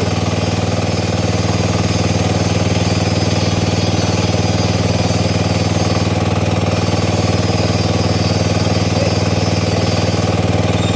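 Drilling rig engine running steadily.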